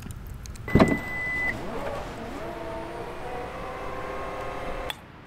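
A thump and a short high beep, then a car's electric motor whining up in pitch and running steadily for about three seconds before stopping with a click.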